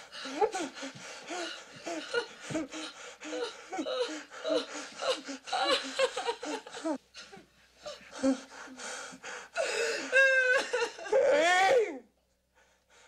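A woman sobbing hysterically in short, gasping bursts. About ten seconds in it rises into a high, wavering wail, then breaks off abruptly.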